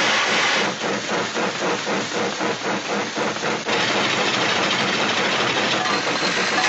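An engine-like mechanical chugging at about five beats a second, changing just under four seconds in to a steady dense rushing noise.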